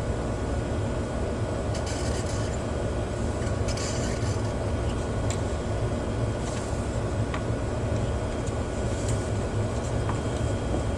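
Steady low rumbling noise with a few faint scrapes and clicks.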